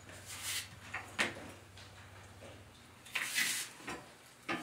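A few sharp clicks and a short scrape from handling bolts, washers and wooden cart beams while trying to line up a bolt hole.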